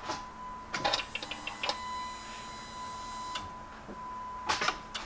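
A Jeep Compass on a flat battery failing to start: a steady high electronic warning tone from the car, a quick run of ticks about a second in and a few sharp clicks near the end, with no engine cranking.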